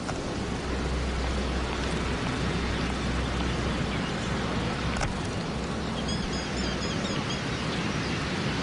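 Steady wind noise on an outdoor microphone, heaviest in a low rumble, with a bird chirping several times about six seconds in.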